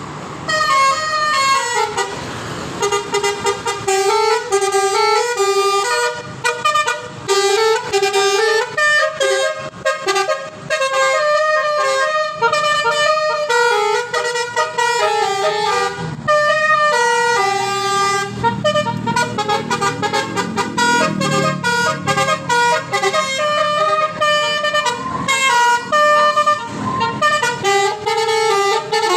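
Basuri musical car horn playing a melody, a quick run of stepped horn notes, several to the second, one after another.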